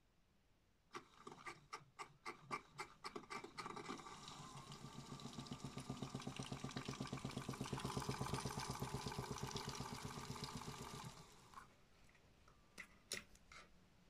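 Modified Miele toy washing machine spinning up with water in its drum: separate knocks that quicken into a steady fast pulsing run, which stops about eleven seconds in. A few clicks near the end.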